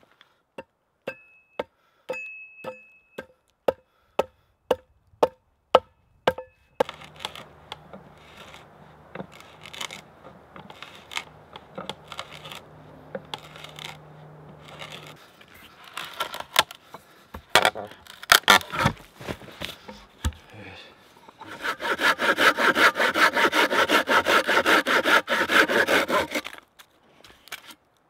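About a dozen evenly spaced axe blows, roughly two a second, hewing a log stood on a chopping block. Then several seconds of scraping and rubbing on wood with a few knocks, and finally fast, steady strokes of a Silky hand saw cutting through wood, the loudest part, which stop shortly before the end.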